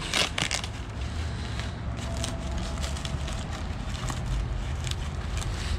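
Plastic foam packing wrap crinkling and rustling in irregular crackly bursts as a carbon-fibre diffuser is pulled out of it, over a steady low hum.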